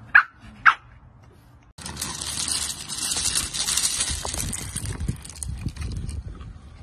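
Two short, sharp yaps from a French bulldog puppy. Then, after a cut, a loud steady hiss with scattered low grunts from French bulldog puppies tussling over a plush toy.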